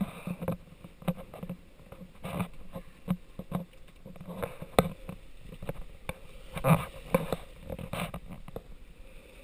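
Water rushing and slapping against the hull of a sailing yacht heeled under sail, with irregular sharp splashes and knocks, the loudest about five and seven seconds in.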